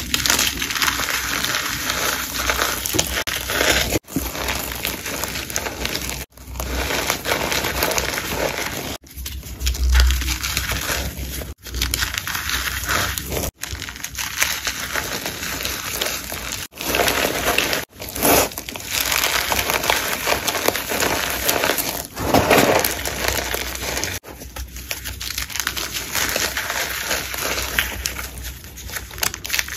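Blocks of gym chalk crushed and crumbled in the hands: a continuous dry crunching and crackling, broken by short breaks every few seconds.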